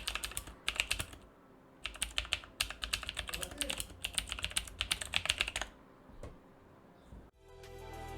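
Typing on a mechanical keyboard with clicky Outemu Blue switches that have been spray-lubed with silicone lube, in two fast bursts of keystrokes with a pause between. Music starts near the end.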